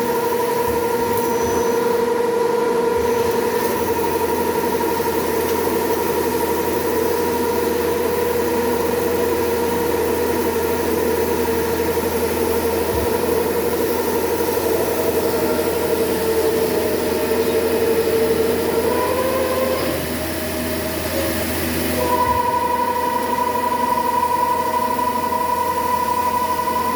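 CNC machine running, its spindle giving a steady high whine over a low hum. The whine wavers and drops about two-thirds of the way through, then comes back for the last few seconds.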